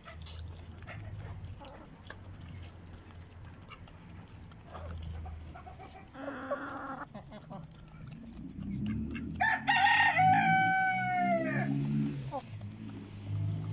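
A rooster crows once, a long call of about two and a half seconds that drops in pitch at its end, the loudest sound here. Before it, chickens cluck softly and peck at grain, with light clicks, and a low drone runs under the second half.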